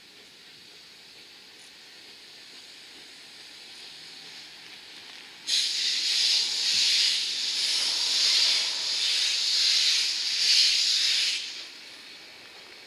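Steam locomotive letting off steam: a loud hiss starts suddenly about five seconds in, wavers for about six seconds, then cuts off sharply. Before it there is only the faint sound of the train rolling past.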